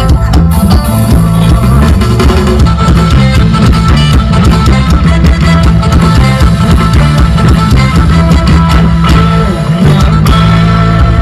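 Live rock band playing loudly: guitar over a moving bass line and drum kit, an instrumental stretch without singing.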